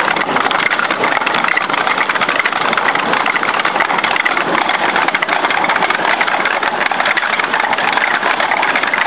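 A machine running with a steady, fast mechanical rattle that does not let up.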